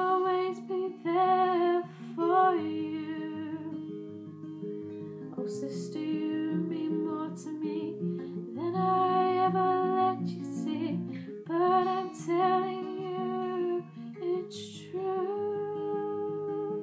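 A guitar played in a steady chord pattern, with a woman singing wordless phrases over it that rise and fall and break off in short gaps.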